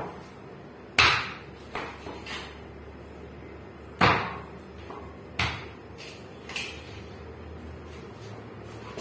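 Knife chopping through chicken backbone on a cutting board: six uneven chops, the heaviest about a second in and about four seconds in.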